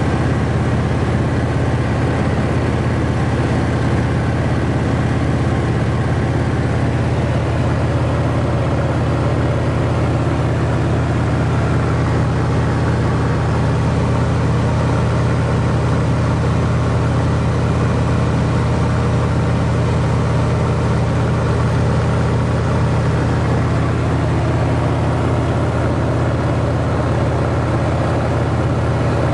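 Cessna 195's radial engine and propeller running steadily at cruise, heard from inside the cabin as an even, low drone.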